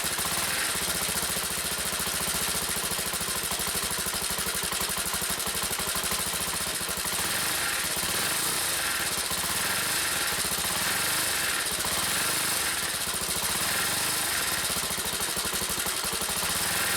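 Honda CBX125's air-cooled single-cylinder engine running on the stand with the revs raised. From about seven seconds in, a higher-pitched sound comes and goes about once a second: the strange abnormal noise that appears when engine speed rises.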